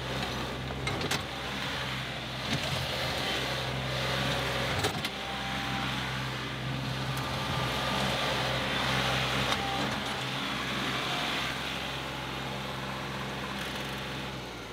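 John Deere 2038R compact tractor's three-cylinder diesel engine running steadily under load while its front loader digs into a dirt pile and dumps it. A few clunks come in the first five seconds.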